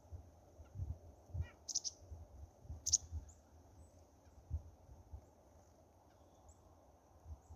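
Two short, sharp high chirps from a small wild bird, about two and three seconds in, the second the loudest sound. Under them run repeated low thumps of wind or handling on the microphone and a steady faint high tone.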